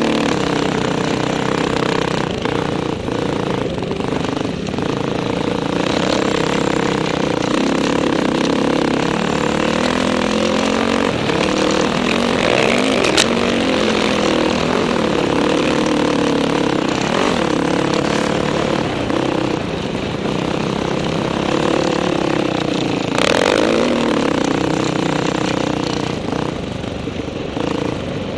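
Dirt bike engine running under load, its pitch rising and falling with the throttle, heard from the rider's helmet camera. Two brief sharp noises cut through, about halfway and again near the end.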